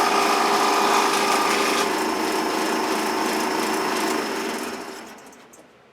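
Power tool motor running steadily, then switched off about four seconds in and winding down over the next second or so.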